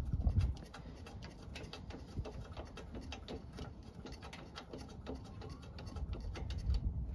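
Light, irregular metal clicks and ticks as bolts are threaded in by hand on a brake air deflector bracket, the plate shifting against the lower control arm. A low rumble runs underneath and swells near the end.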